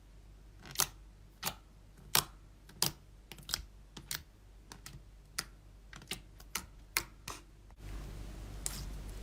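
Slime being pressed and poked, giving a series of sharp clicking pops, about a dozen spaced roughly half a second apart. Near the end they give way to a soft, steady rustle.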